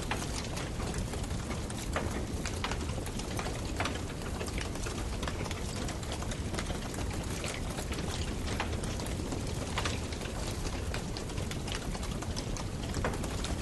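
Wood fire crackling in a fireplace, with irregular sharp pops and snaps, a few a second, over a steady low rush.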